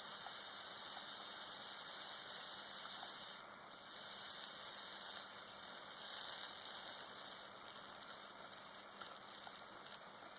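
S39 soldering flux sizzling faintly as it boils off under a soldering iron, on a bundle of wire leads being soldered together. It is a soft hiss that swells and eases a few times.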